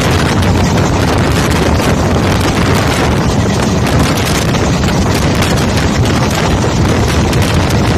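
Wind buffeting the microphone at an open window of a moving train, over the train's steady running rumble.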